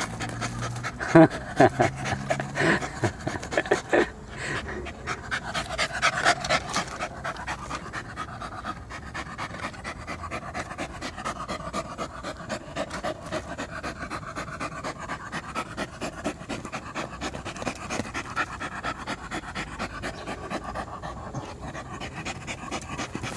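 Poodle panting fast and steadily, out of breath from digging.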